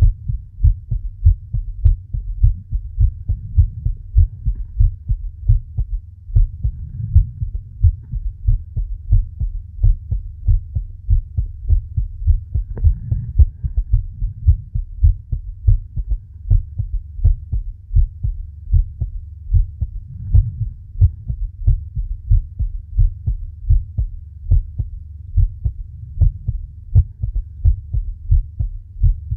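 A human heartbeat, a steady, regular run of low thumps.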